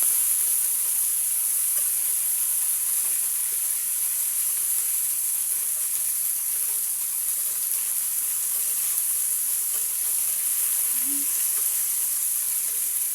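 Pieces of fish frying in hot oil in a frying pan: a steady sizzle.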